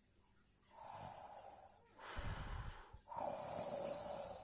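Someone snoring: a low snoring breath in, then a longer hissing breath out, in repeated cycles.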